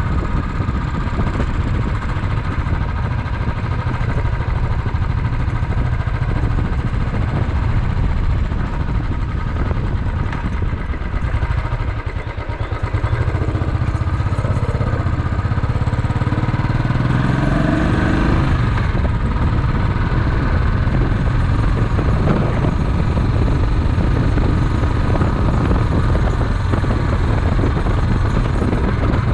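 Small motorcycle engine running while riding, heard close with wind and road noise. About twelve seconds in it eases off briefly, then picks up again with a rising pitch as the bike accelerates.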